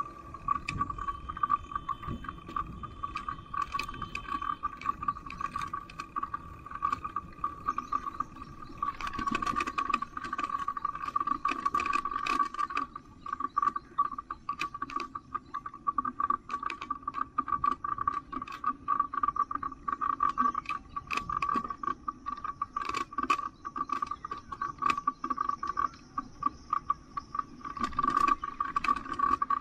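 Bicycle rattling and clicking as it rolls along the road, the clicks coming irregularly, over a steady high-pitched whine.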